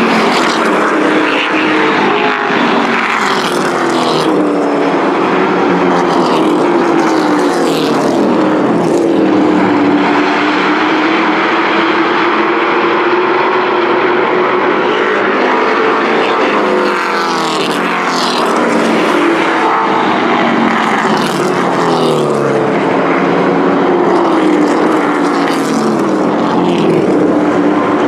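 Engines of several Thunder Truck race trucks running hard in a pack around a paved oval, their pitch repeatedly rising and falling as they lap.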